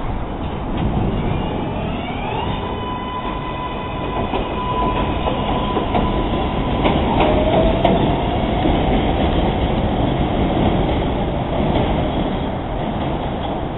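R142A subway train pulling out and accelerating past: its propulsion whine rises in stepped tones that climb, hold steady, then climb again. Under it runs the rumble and clatter of wheels on the rails, loudest as the cars go by.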